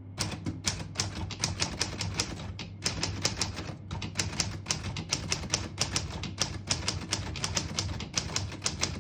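1938 Corona Standard portable typewriter being typed on at a brisk, steady pace: a quick run of sharp key strikes, several a second, with a couple of brief pauses between words.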